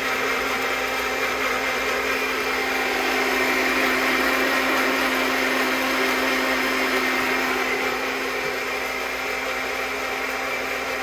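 Personal blender running steadily, blending a thick piri piri pepper sauce, with a constant motor hum under the churning.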